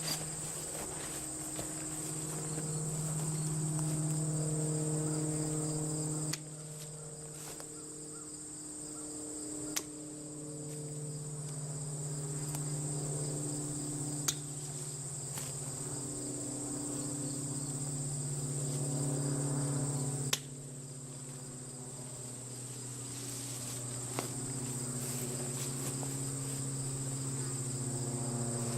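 Swarm of honey bees buzzing: many overlapping wingbeat hums that drift up and down in pitch. A steady high-pitched insect trill runs above it, and a few sharp clicks break in.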